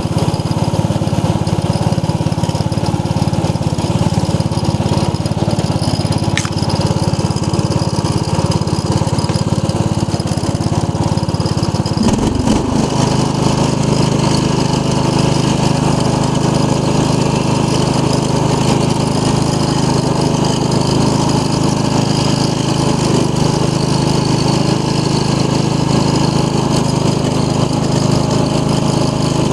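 15 hp Briggs & Stratton OHV single-cylinder engine on a 1990 Craftsman riding mower running steadily after being brought back to life. About twelve seconds in, its engine speed changes and then settles at the new speed.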